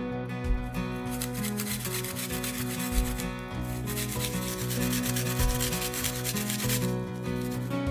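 Garlic cloves rubbed quickly back and forth on a plastic grater, a dense rasping of fast strokes that starts about a second in and stops near the end. Acoustic guitar background music plays throughout.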